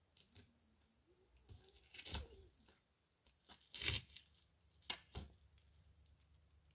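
A few sharp knocks and cracks, the loudest about four seconds in, over a quiet background.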